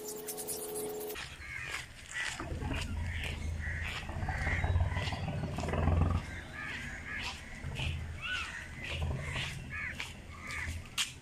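Crows cawing over and over, many short calls one after another, over a steady low rumble. A held, electronic-sounding tone cuts off about a second in.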